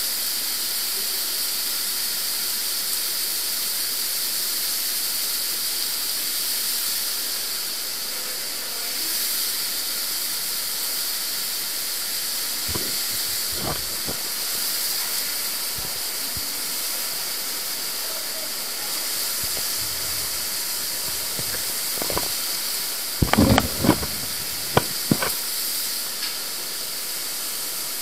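Steady rushing hiss of water flowing through the underground Neglinka river's sewer collector, echoing in the tunnel. A few sharp knocks and clanks cut through it, most of them in a cluster near the end, as someone climbs on metal ladder rungs.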